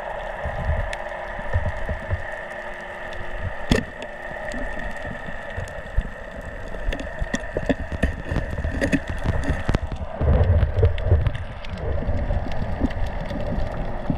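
Underwater noise as picked up by a diver's camera: low rumbling surges of water movement and handling, heaviest a little past the middle, with scattered sharp clicks, one louder than the rest about a quarter of the way in. A steady high tone runs underneath and stops about two-thirds of the way through.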